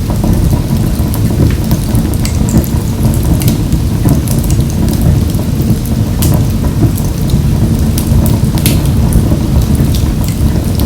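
Wood fire burning in a wood-burning stove: a steady low rumble with irregular sharp crackles and pops scattered throughout.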